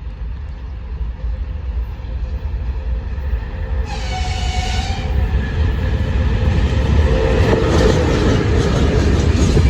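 VL80s twin-section electric locomotive approaching with a train of gondola wagons, its low rumble growing steadily louder. About four seconds in it sounds its horn once, for about a second.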